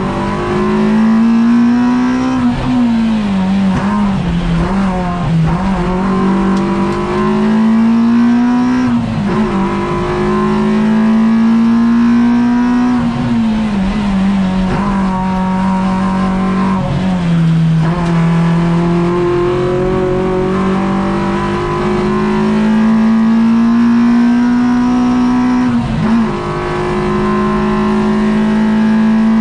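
Peugeot 106 Rally's four-cylinder engine under hard acceleration, heard from inside the stripped cabin. The revs climb in each gear and fall sharply at each gear change, about half a dozen times.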